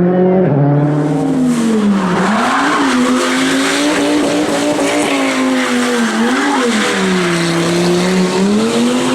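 Rally car engine revving up and down repeatedly. From about a second in, its tyres are skidding.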